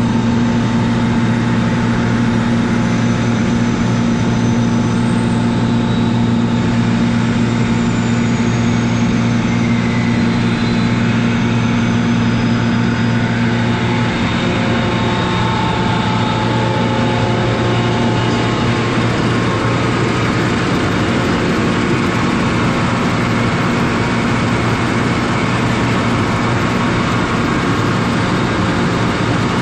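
1990 Kaeser DS200 150-horsepower rotary screw air compressor running: a loud, steady mechanical hum from its electric motor and screw airend.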